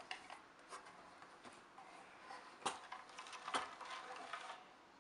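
Handling noises as a chrome shower fitting and a round rain shower head plate are moved about in a cardboard box: light clicks and rustling, with two sharper knocks between two and a half and three and a half seconds in.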